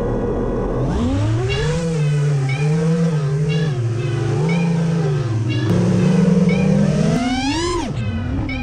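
FPV quadcopter's brushless motors and propellers whining, the pitch swinging up and down with the throttle. They spool up about a second in as it lifts off, then climb in a steep rising whine near the end before dropping sharply.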